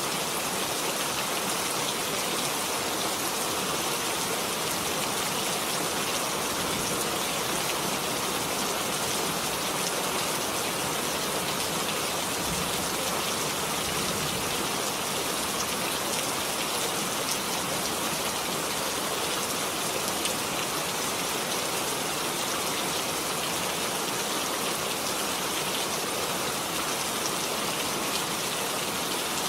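Steady, even rain falling, with a dense patter of drops on a surface.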